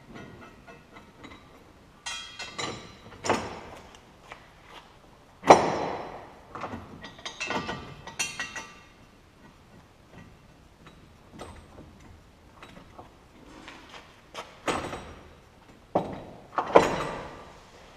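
Clunks and knocks of steel towbar brackets being handled and set against a van's chassis rail, in three bunches, the loudest clunk about five seconds in.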